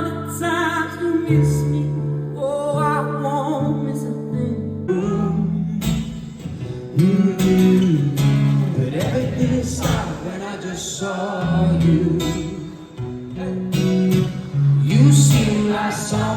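Live acoustic guitar and singing: held guitar chords under a wavering vocal line, turning to steady strumming about five seconds in.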